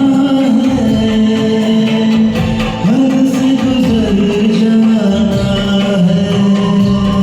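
Hindi film song music from a karaoke performance: a melody line of long held notes that slide between pitches, over the backing track's accompaniment.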